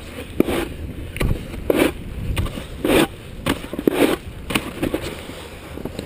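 Snowboard scraping and carving over packed snow, coming in irregular surges about twice a second, over a steady low wind rumble on the microphone.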